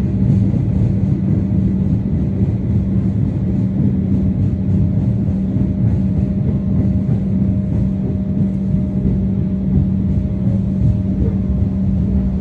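Melbourne Metro suburban electric train running, heard from inside the carriage: a steady low rumble with a constant hum over it.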